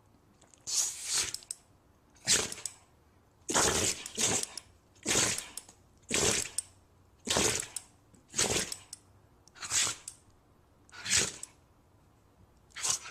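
Dog sneezing over and over, about a dozen short, sharp sneezes roughly a second apart, a few of them doubled.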